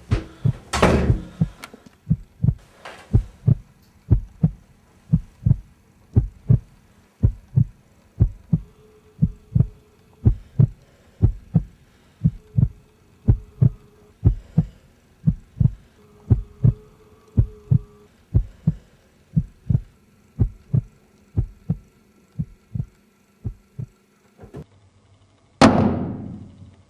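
Heartbeat sound effect, a steady train of low thuds about one and a half a second, with a loud noise about a second in. Near the end the beating stops and a knife clatters onto a tiled floor with a ringing tail.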